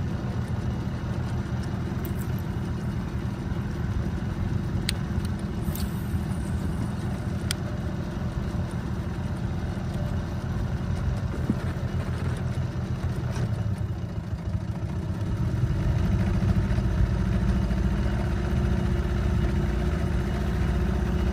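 Boat engine running steadily at low trolling speed, a low rumble that grows a little louder about two-thirds of the way through, with a few light clicks early on.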